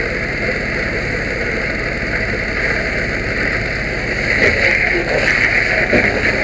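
Fire hose nozzle spraying a hard, steady stream of water onto an excavator that has been on fire. The hiss and splatter grow louder about four seconds in.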